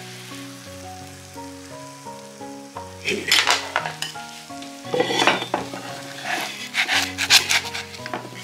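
Pan-fried gyoza sizzling in oil in a nonstick frying pan, the sizzle rising into loud bursts from about three seconds in.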